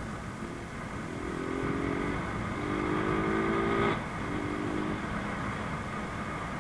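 Rusi Gamma 200 motorcycle engine pulling under throttle while riding, its pitch climbing in short stretches as it gets louder, then cutting off sharply about four seconds in before picking up briefly again. Steady wind and road rush runs underneath.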